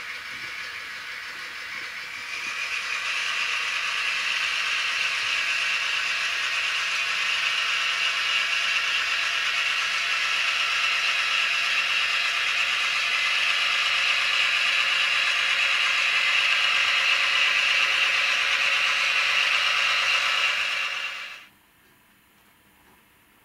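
Model diesel locomotive of the DR class 118 running with its train, a steady rattling, clattering engine-and-running sound heard through a small speaker. It swells about two seconds in and cuts off suddenly near the end.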